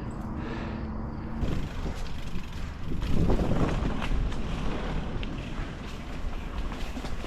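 Wind buffeting the microphone over the rattle and tyre noise of a mountain bike riding a dirt trail, with scattered light clicks.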